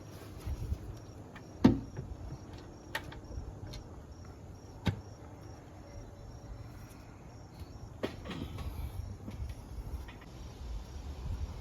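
Scattered clicks and knocks of hand work on a car engine, the loudest about one and a half seconds in, over a low rumble. A cricket chirps steadily and faintly in the background.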